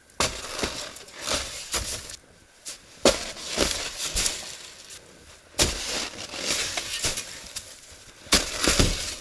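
Snow shovel breaking into and scraping hard, frozen snow, a gritty crunch about once a second at an uneven pace.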